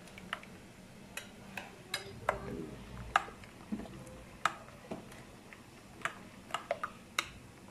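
Metal fork clinking against a glass bowl while whisking coconut milk powder into hot water: irregular sharp ticks, about one or two a second.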